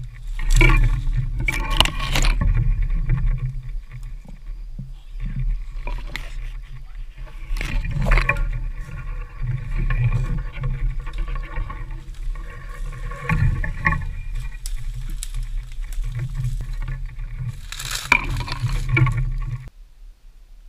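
Pushing through thick brush on foot: branches and palmetto fronds scraping and rustling against a body-worn camera, with footsteps in dry leaf litter and a low rumble of camera handling. Several loud crashing bursts of brush come and go, and the sound drops off sharply near the end.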